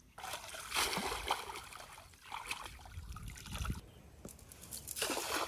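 Shallow muddy water splashing and sloshing as a cast net is handled in it, in uneven surges with the loudest about a second in and another near the end.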